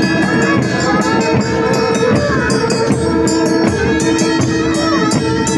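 Music with fast, even drum strokes under long held, pipe-like tones, steady throughout.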